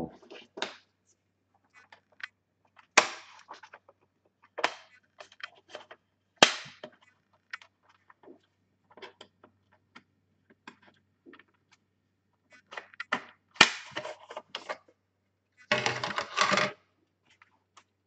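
Sharp plastic clicks and snaps as the bottom access cover of an HP ProBook 455 G1 laptop is pried off, its clips letting go one at a time. A longer clatter comes near the end.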